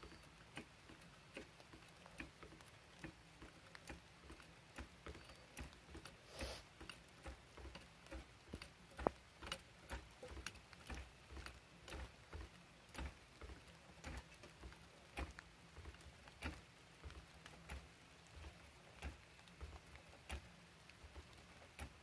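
Faint, fairly regular clicking, about two clicks a second, with one louder click about nine seconds in: hand tools being worked at a car's wheel during a tyre job.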